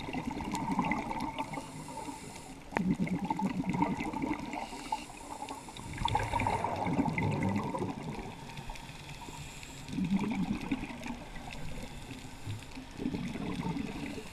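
Scuba diver breathing through a regulator, heard underwater: a burst of exhaled bubbles every three to four seconds.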